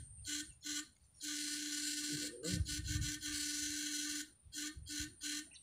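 Electric-fishing shocker buzzing as it is keyed on and off: two short bursts, then a steady stretch of about three seconds, then four quick bursts near the end.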